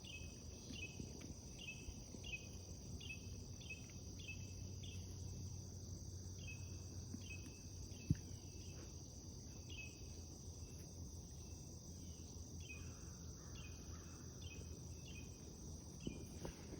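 Faint outdoor insect chorus: a steady high trill, with short chirps repeating about twice a second and pausing now and then. A single brief click about eight seconds in.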